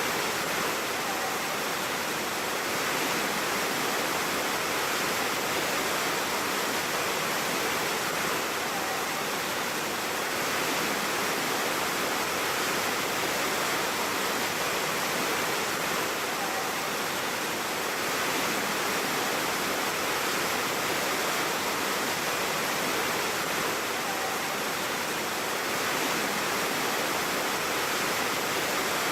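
Waterfall: a steady, even rush of falling water, with the same faint detail recurring about every eight seconds, as from a looped recording.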